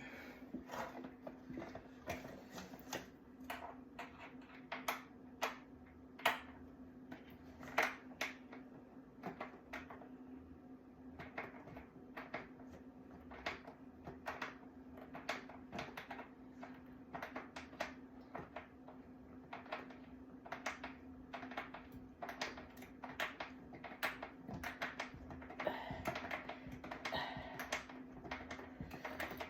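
Irregular light clicks and knocks, several a second, of objects being handled, over a steady low hum.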